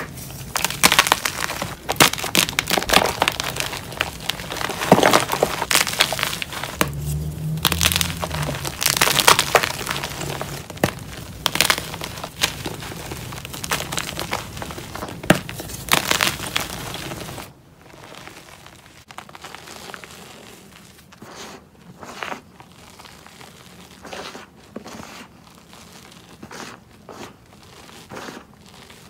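Hands crushing and crumbling blocks of gym chalk: dense, crisp crunching and crackling. A little past halfway it drops suddenly to quieter, softer crumbling and pressing of loose chalk powder.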